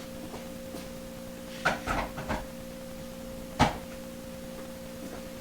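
A few light clicks and knocks a little under two seconds in, then one sharp, louder click about a second and a half later: a cordless tool and its battery packs being handled, such as a pack latching onto or off the tool or charger. A faint steady hum runs underneath.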